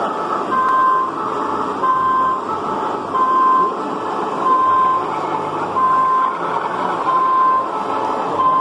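Two-note siren from the sound-fitted model Class 47 diesel locomotive in police livery: a short higher note then a longer lower note, repeating evenly about every 1.3 s.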